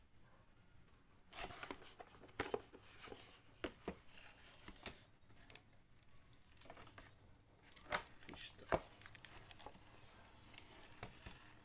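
Unboxing a tool kit: packaging rustling and crinkling as it is opened, with scattered clicks and knocks as it is handled, the sharpest a few knocks about a third of the way in and two more past the middle.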